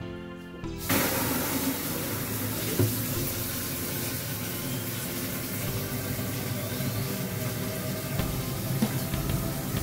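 Water from a tap pouring in a steady stream into a large plastic water jug, starting suddenly about a second in.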